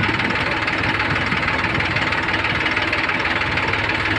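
Diesel engine of a heavily loaded Swaraj tractor working hard in low gear as it tries to pull out of loose, dug-up soil, with a JCB backhoe's diesel running alongside. The engines make a steady, rapid clatter throughout.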